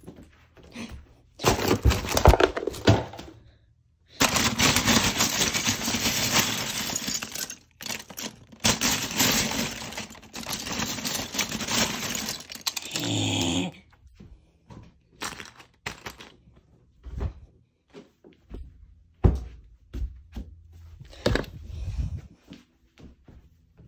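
Hands rummaging through loose Lego bricks in a clear plastic storage bin: a dense clatter of small plastic pieces for several seconds, broken by a short pause, then scattered separate clicks and knocks.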